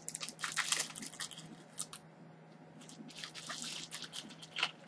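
Small plastic cosmetic packaging being handled and opened: crinkling and crackling in two bunches, with a single sharper click near the end.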